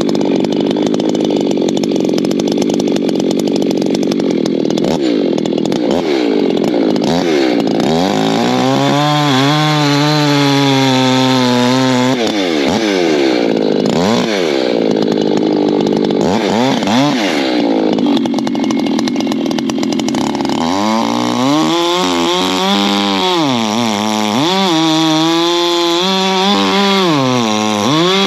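Two-stroke Echo chainsaw bucking oak into firewood rounds. The engine runs steadily at first, then its pitch rises and falls again and again as it revs and bogs through the cuts.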